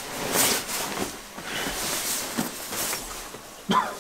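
Heavy nylon Striker ice fishing bibs rustling and swishing as they are pulled on, in a series of irregular swishes, with a brief sharper sound near the end.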